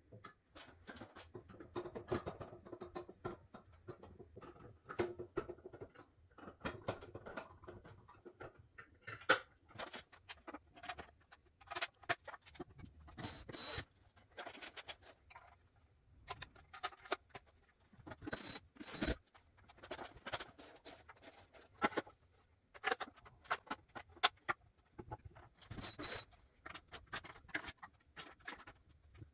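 Irregular clicks, taps and scrapes of ceiling-fan parts, hardware and tools being handled during assembly and mounting, several sharp knocks standing out among softer rustling.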